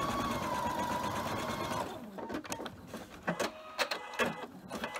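Electric sewing machine stitching a short seam: the motor speeds up, runs steadily for about two seconds, then stops. A few light clicks and knocks follow.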